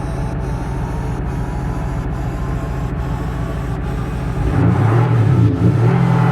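Audi SQ5's 3.0-litre twin-turbo V6 diesel engine running with a steady low rumble. About four and a half seconds in it grows louder, its pitch wavering up and down as if being revved.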